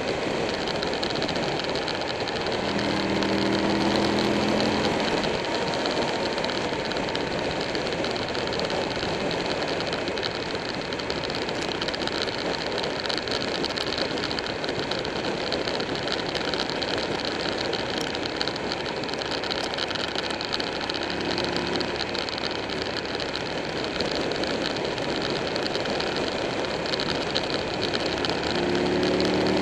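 Motorcycle riding at speed: steady wind rush and road noise, with the Buell 1125R's V-twin engine note coming up louder as it accelerates out of the bends a few seconds in and again near the end.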